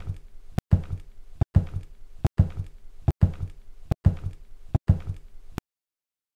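A looped cartoon sound effect: a short thudding sound, each starting with a sharp click, repeated evenly about once every 0.85 seconds, seven or eight times, then stopping shortly before the end.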